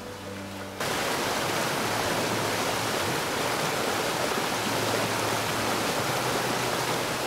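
Water rushing through the opened sluices at the foot of a wooden lock gate, starting abruptly about a second in and then running steadily: the lock chamber being drained.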